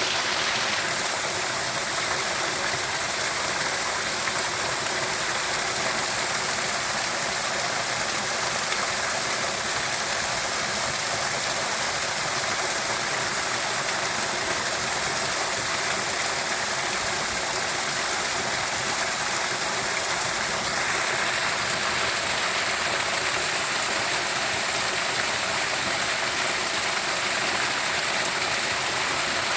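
Steady rushing water, like a stream or small waterfall, a constant even wash of sound. Its tone shifts slightly about a second in and again about two-thirds of the way through.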